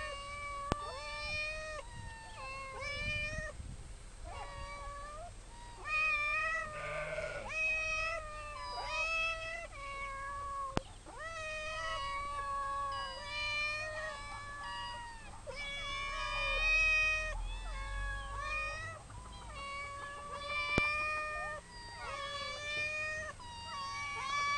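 Several domestic cats meowing at once, overlapping calls following one another with hardly a pause.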